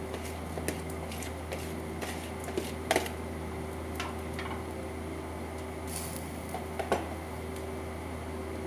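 Kitchen handling sounds: a plastic bowl and a cooking pot on a gas stove knocking together, a few sharp clicks and taps about three, four and seven seconds in, over a steady low hum.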